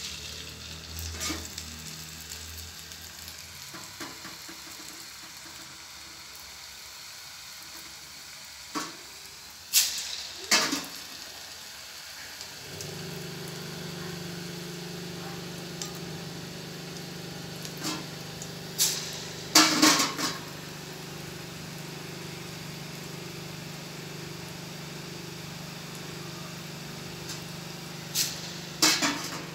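Murukku deep-frying in hot groundnut oil in an aluminium kadai, with a steady sizzle. A few sharp metal clinks and clatters come from the slotted spoon knocking the pan, and a steady low hum joins about halfway through.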